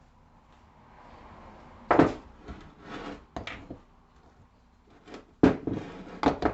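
Knocks and clatter of hard objects being handled and set down. The loudest knock comes about two seconds in, and two more come near the end.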